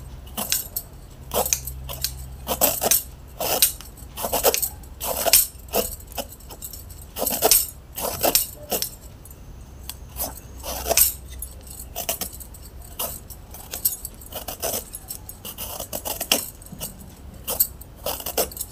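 Hand vegetable peeler scraping the skin off a brinjal (eggplant), a run of short sharp strokes, roughly one or two a second.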